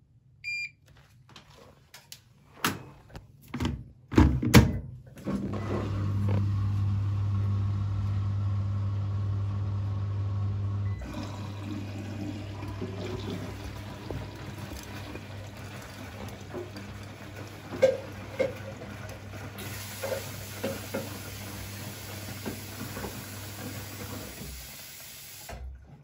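Siemens front-loading washing machine starting a wash: a short beep, a few sharp clicks and knocks, then the water inlet valve hums steadily as water runs in to fill the drum, the flow changing about eleven seconds in, with occasional knocks from the drum.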